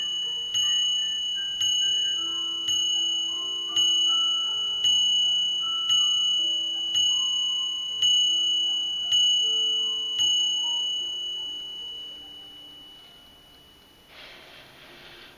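A German eight-day mechanical mantel clock striking the hour on its bell: ten hammer strikes about a second apart, each ringing on, the ringing fading away after the last strike about ten seconds in. A brief rustle near the end.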